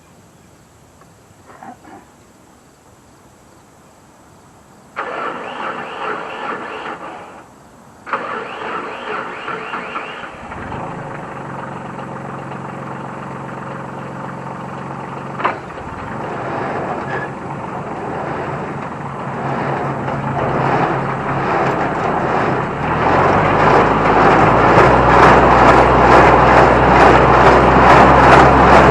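New Holland T1510 compact tractor's diesel engine cranked on the starter about five seconds in, pausing and cranking again until it catches. It then runs steadily and speeds up, growing loud over the last few seconds with a fast, even beat.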